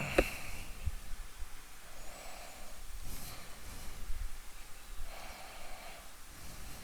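A person breathing slowly and audibly through the nose close to the microphone, a soft breath about every three seconds, with a sharp click just after the start.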